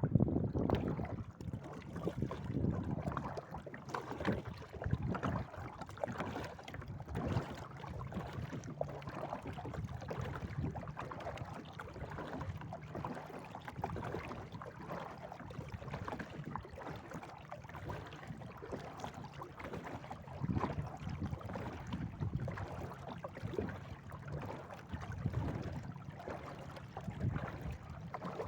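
Kayak paddling: the paddle dipping and splashing in the water in uneven strokes, with wind rumbling on the microphone.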